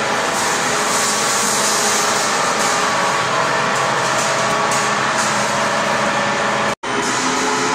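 Pulley-type steel wire drawing machines running: a loud, steady mechanical hum and whir with several steady tones in it, cutting out for an instant near the end.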